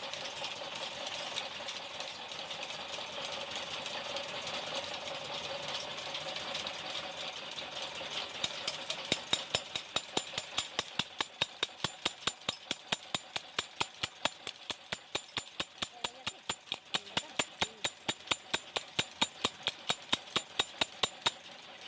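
Steady machine noise for the first several seconds, then sharp, evenly spaced metallic taps, about three a second, from about eight seconds in almost to the end.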